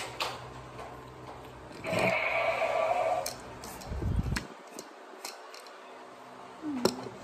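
Clicks and rattles of a telescoping selfie-stick tripod being picked up and handled, with a dull thump about four seconds in and a sharp click near the end. A person's voice is heard briefly about two seconds in.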